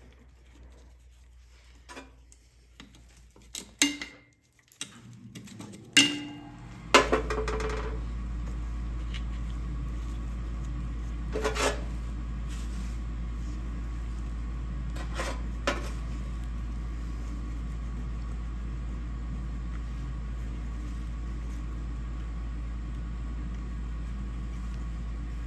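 Metal parts and tools clinking and knocking during hand work on an engine, then a steady machine hum with a low drone starts about seven seconds in and keeps going, with a few more clinks over it.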